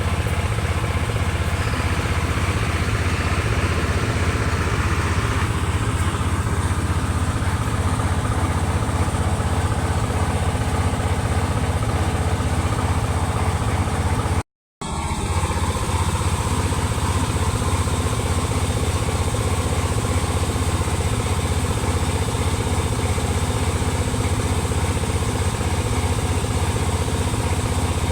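Howo 380 truck's diesel engine idling steadily, with an even low-pitched running; the sound stops abruptly for a moment about halfway through and resumes unchanged.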